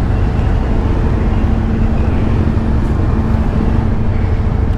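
Suzuki V-Strom motorcycle running at low speed as it rolls across a car ferry's steel deck: a steady low rumble with a constant hum under it.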